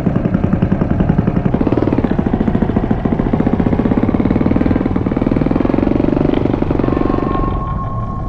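Underwater noise soundscape of the Noise Aquarium installation playing over its surround sound system: a loud, low, engine-like rumble pulsing rapidly. A steady high tone joins near the end.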